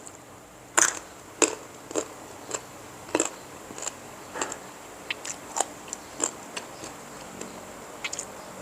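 Close-mouthed chewing and biting of crunchy food: naem (Thai fermented pork sausage) eaten with fresh chili and raw Thai eggplant. There is a short crisp crunch every half second to a second, beginning about a second in.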